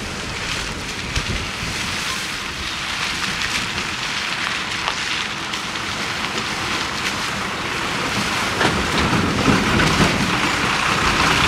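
Heavy lorry rolling through muddy, water-filled potholes: a rushing, crackling noise of tyres in mud and water that grows louder as the lorry comes closer, with a few short clicks and knocks.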